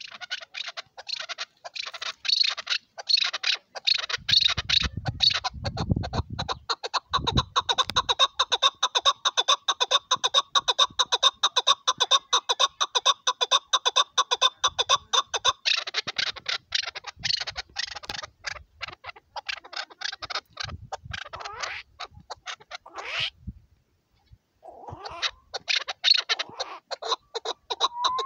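Chukar partridge calling on and on, a rapid run of short repeated chuck notes. The calls break off for about a second near the end, then start again.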